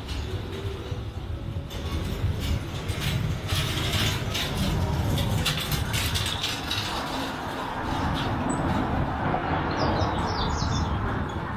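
Street traffic: a steady low rumble of vehicles on the road close by, with a run of rattling clatter in the first half and a few short high chirps near the end.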